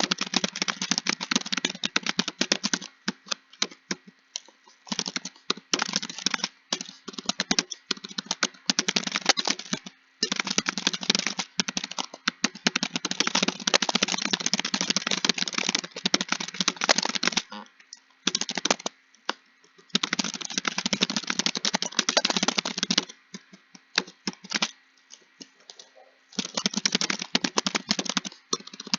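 Computer keyboard being typed on: rapid runs of key clicks in bursts of a few seconds, broken by short pauses with only scattered keystrokes.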